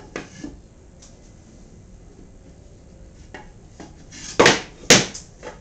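Pieces of birch plywood knocking and clattering together as they are handled. A few light knocks come first, then two loud knocks half a second apart near the end.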